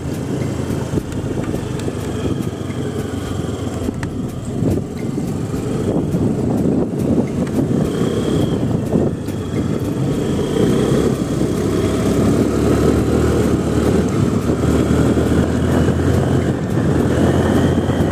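Scooter on the move: its engine's steady drone mixed with wind rushing over a helmet-mounted microphone, a little louder in the second half.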